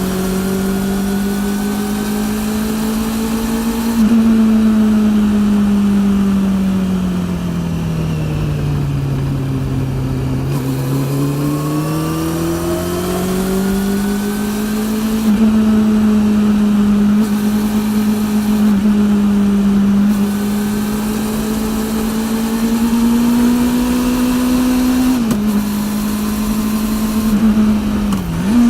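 Honda CB400 NC42's inline-four engine running through a TSR E02 slip-on exhaust on the move. The engine note falls steadily about a third of the way in, then climbs again as the throttle opens. Near the end there are two brief dips in pitch.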